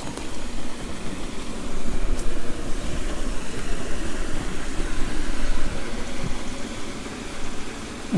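Steady rush of water flowing into a moat, under a low rumble that swells from about two seconds in to about six seconds in.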